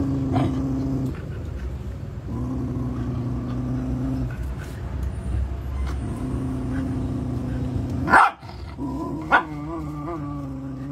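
Puppies growling in bouts of about two seconds as they play-fight. About eight seconds in comes a loud sharp yip, a second one follows about a second later, and then a wavering growl.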